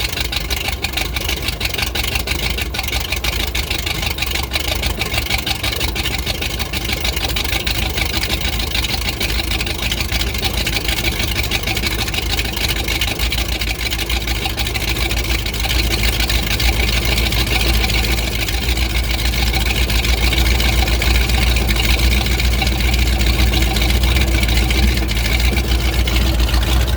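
Engine idling roughly and unevenly, the rough idle that sets in after the throttle has been snapped. It grows a little louder and deeper about halfway through.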